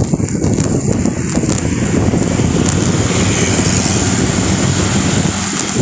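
Wind noise on the microphone of a camera moving at speed along a road: a loud, steady, rumbling rush.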